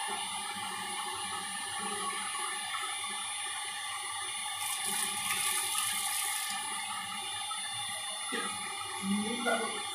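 Electric heat gun running steadily, its fan blowing hot air onto fish pieces on an iron tawa, a steady airy rush with a brighter hiss swelling for a second or two about halfway through.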